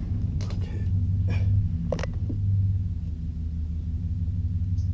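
Aviation snips cutting through the plastic lower edge of a Toyota Tacoma's front bumper cover: a few short cuts in the first two seconds, over a steady low rumble.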